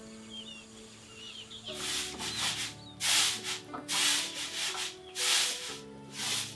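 Rice being winnowed on a round woven bamboo tray: the grains are tossed and caught in a dry rattling swish, repeated about once a second from about two seconds in.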